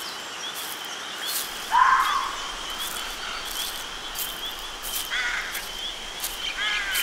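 Forest ambience: a steady high chirping of insects or small birds, with a louder gliding bird call about two seconds in and another around five seconds.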